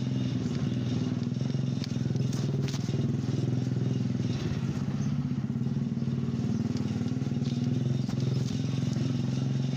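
Motorcycle engine running at a steady speed while the bike is ridden, an even hum with a few light clicks about two to three seconds in.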